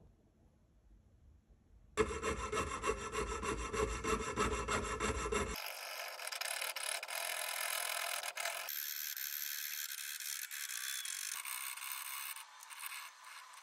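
Jeweler's saw blade rasping back and forth through the diecast metal body of a 1:64 toy car, cutting out a door. The sawing starts about two seconds in and its tone changes abruptly several times.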